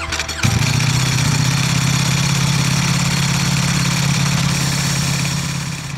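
Ducati Panigale V4 SP's 1,103 cc Desmosedici Stradale V4 engine starting: a brief crank, catching about half a second in, then idling steadily.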